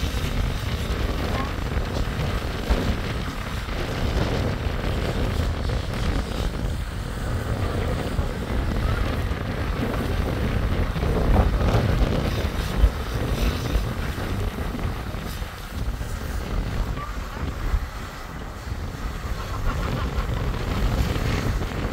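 Wind buffeting the microphone in a steady low rumble, with faint voices now and then.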